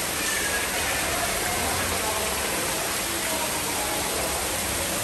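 Steady hiss of running water, with a faint murmur of voices in the background.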